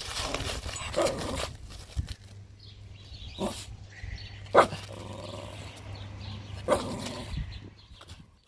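Two puppies giving several short, sharp yaps while scrambling about in a bag of sand, the loudest about halfway through. The sound stops just before the end.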